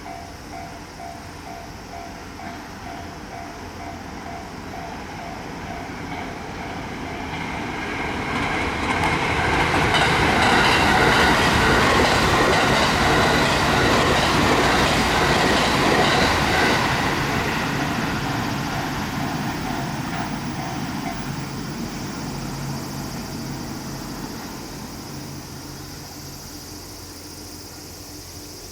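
A level crossing's warning bell rings with a quick repeating ding while a train passes. The train's running noise grows, is loudest from about ten to sixteen seconds in, then slowly fades away.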